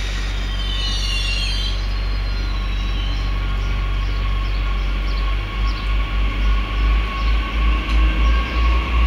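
SNCF TER regional multiple unit approaching along the track, its running noise steady with a high whine. About five seconds in, a rhythmic low pulsing sets in, about two a second, as it draws nearer.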